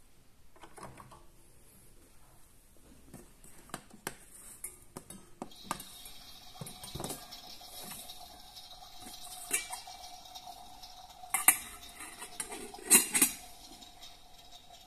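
Toy kitchen cookware and wooden utensils being handled, with small metal pans clinking and knocking; the loudest clinks come near the end. From about six seconds in, a steady electronic tone with a hiss runs underneath.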